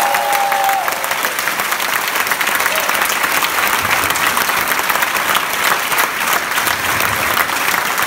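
A large crowd applauding with dense, steady clapping.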